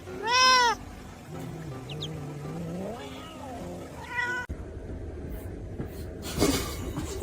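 Domestic cat meowing: one loud meow just after the start, a fainter drawn-out meow about three seconds in, and a short one just after four seconds.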